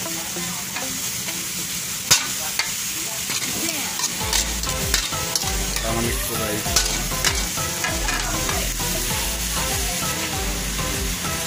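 Beef and shredded bamboo shoots sizzling in a wok as a metal ladle stirs and tosses them, with scattered sharp clinks and scrapes of the ladle against the pan.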